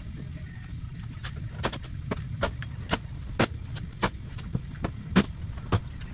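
Low, steady rumble of a vehicle on the move, with irregular sharp clicks and knocks over it, the loudest about three and a half and five seconds in.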